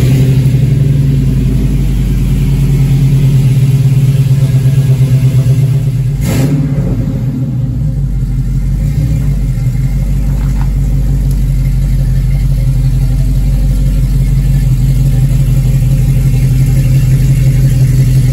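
LS-swapped car's V8 engine just fired up after sitting over the winter, running at a steady idle. A single sharp knock sounds about six seconds in.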